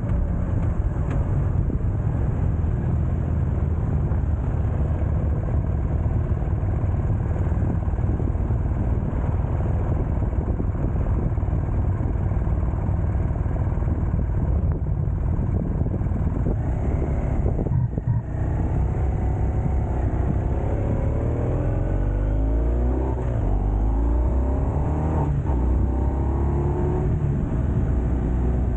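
Vehicle engine running at road speed with wind and road noise, a steady low rumble; in the later part the engine's pitch rises and falls several times.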